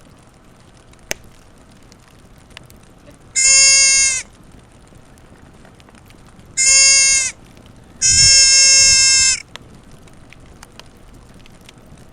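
Deer fawn bleating: three high calls, each held at a steady pitch, the third the longest at over a second.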